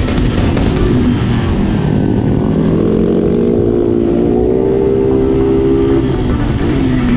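Motorcycle engine running, its pitch climbing a few seconds in and dropping near the end, over a steady rumble of wind on the microphone.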